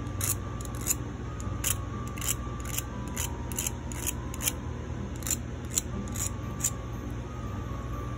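Hand file scraping in short, irregular strokes, a little under two a second, smoothing the sharp ends of soldered copper wire.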